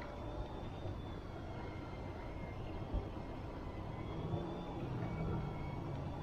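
A small motor running with a steady whine over a low rumble of movement, a deeper steady hum coming in about four seconds in.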